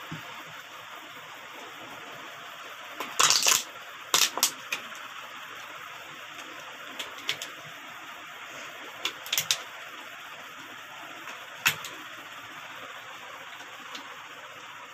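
Plastic bottles and caps handled on a table: scattered clicks and knocks as caps are set on bottle necks and bottles are put down. The loudest cluster comes about three to four seconds in, over a steady hiss.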